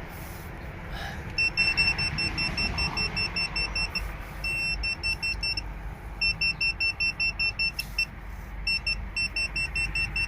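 A non-contact voltage tester pen beeping rapidly and high-pitched, about six beeps a second, in runs that start and stop as it is moved near the wiring. A steady low rumble runs underneath.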